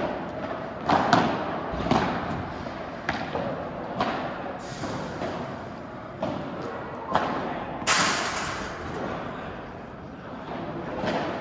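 Padel rally: the ball struck by rackets and bouncing off the court and walls, sharp hits coming about once a second, with a longer, noisier crash about eight seconds in.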